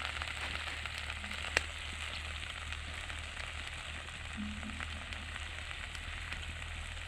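Adusa (Malabar nut) leaf juice sizzling in hot ghee in a kadhai as it cooks down: a steady hiss with scattered small pops, one sharper pop about a second and a half in.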